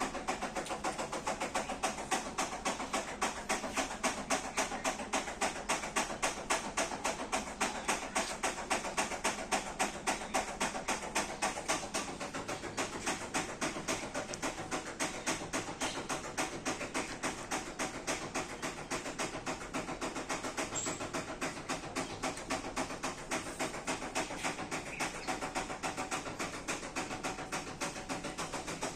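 A dog panting fast and steadily, about four to five breaths a second.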